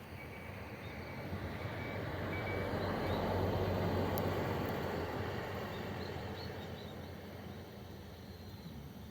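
Sightseeing bus driving past: the engine and tyre noise swells to a peak about four seconds in and then fades away.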